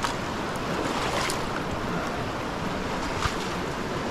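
Steady rushing of a rocky mountain creek, with a few faint clicks.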